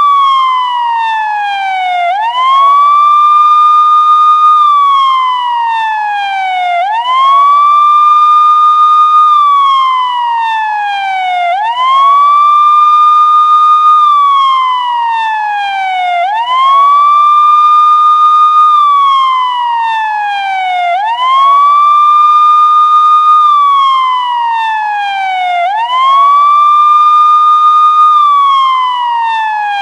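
Police car siren sounding a slow wail: each cycle rises quickly, holds high for a couple of seconds, then falls slowly, repeating about every four and a half seconds.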